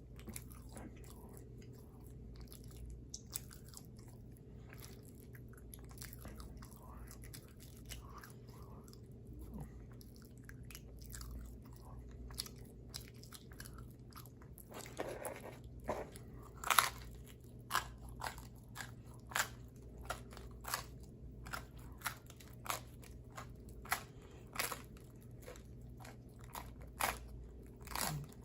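Close-miked chewing of pizza: soft, irregular mouth sounds at first, then from about halfway sharp crunches in a steady chewing rhythm, a little more than once a second.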